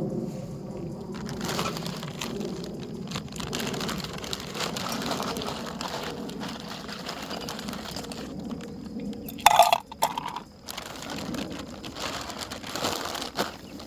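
Folding camp furniture being handled and set up: continuous rustling and clicking, with one loud sharp knock about nine and a half seconds in.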